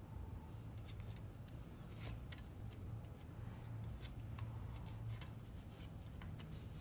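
Irregular light clicks and taps of a cable box shelf bracket's parts being handled and fitted together by hand, over a steady low hum.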